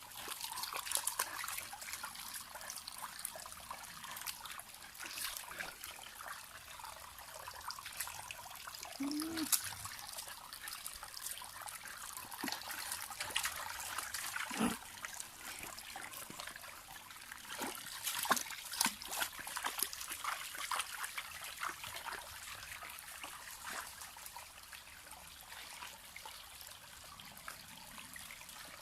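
Water trickling and splashing steadily, with scattered sharper splashes that are loudest about two-thirds of the way through.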